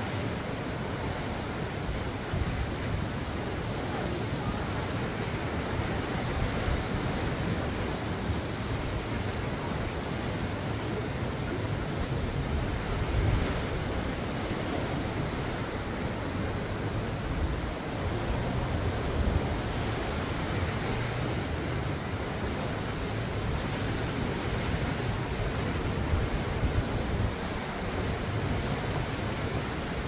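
Sea surf breaking against columnar basalt rocks: a continuous rushing wash with a few louder surges, and wind rumbling on the microphone.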